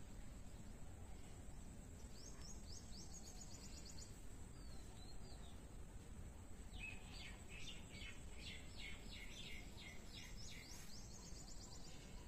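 Faint steady background rumble with a small bird calling: a quick run of high chirps about two seconds in, then a longer series of rapid repeated chirps from about seven to eleven seconds, around four a second.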